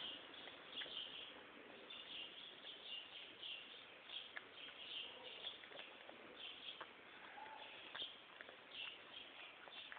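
Persian cat eating: quick, irregular chewing and crunching with small clicks, a few times a second, faint.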